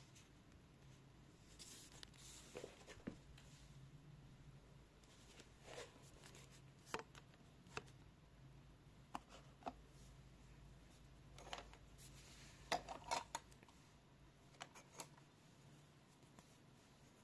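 Near silence: room tone with a faint low hum and scattered soft clicks and rustles, a small cluster of them about two thirds of the way through.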